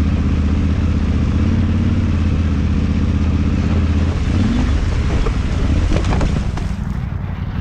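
KTM 790 Adventure's parallel-twin engine running steadily at low speed through shallow water, then about four seconds in the bike slips out on the slick riverbed and goes down: the engine note breaks off into splashing water and a few knocks as the motorcycle hits the river bottom.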